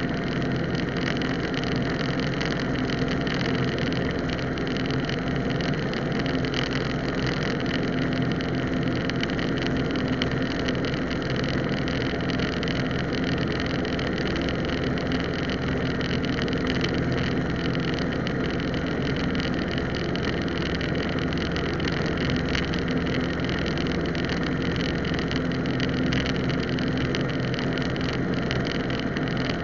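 Cessna 150's four-cylinder Continental O-200 engine and propeller running steadily at constant power, an even drone with no change in pitch or level.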